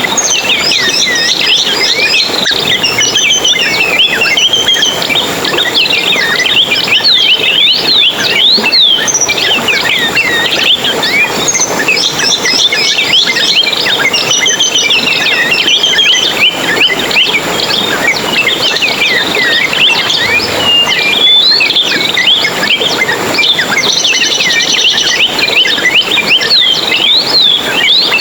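A dense chorus of many small songbirds chirping and twittering at once: a busy, unbroken mix of quick high chirps and trills.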